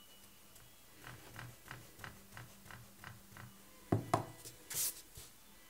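Eraser rubbing back and forth on sketchbook paper, about four strokes a second, then two sharp knocks and a short brushing swipe.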